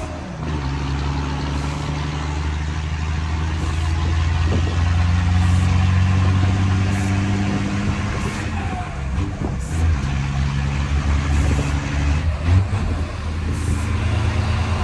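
Mercedes-Benz 1620 truck's diesel engine running loud, its injection pump turned up, the engine note rising and falling several times as the revs change.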